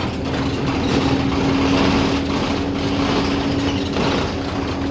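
Bus engine and running noise from inside a moving bus, with a steady low whine throughout.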